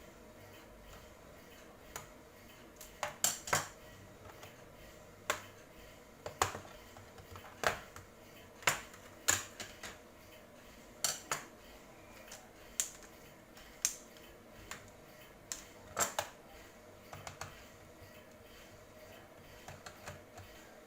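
Irregular sharp clicks and light taps of small tools, screws and plastic laptop parts being handled, about twenty of them, some in quick pairs, as a laptop is worked on to swap its hard drive.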